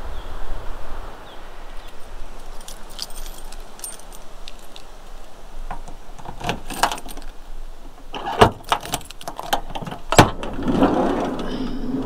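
Keys jangling with scattered light clicks, then several sharp knocks and clunks of a campervan door being unlocked and opened, the loudest about eight and ten seconds in, followed by a louder rushing noise near the end.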